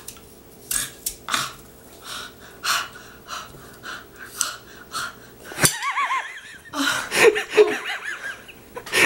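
Breathless, wheezing laughter: a run of short breathy gasps, turning into squeakier, pitched laughs about six seconds in.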